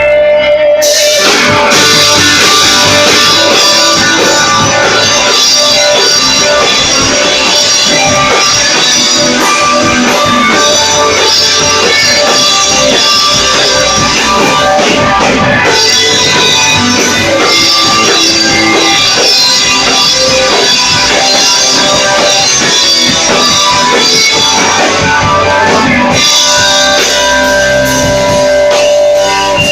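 Live rock band playing loud on electric guitars and drum kit. Near the end the full band drops away to held, ringing notes.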